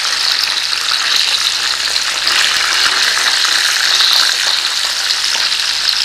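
Panko-breaded chicken breasts shallow-frying in hot oil in a frying pan: a steady, dense sizzle and crackle as the pieces are turned over with forks to cook the second side.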